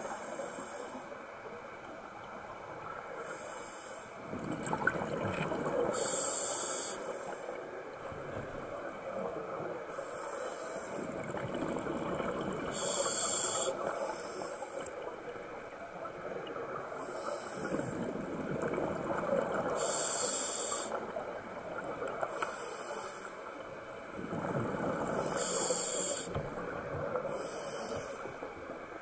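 Scuba diver breathing through a regulator underwater: a short hiss on each inhale every three seconds or so, and a bubbling rumble from the exhaled air in between.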